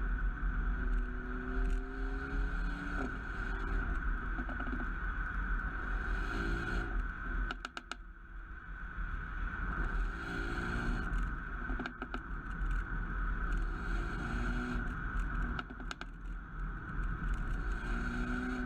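Mercedes-AMG A35's turbocharged 2.0-litre four-cylinder pulling hard several times, its pitch rising through each gear, over a steady low rumble. Three times, as the throttle is lifted, a quick run of exhaust pops and crackles breaks out on the overrun.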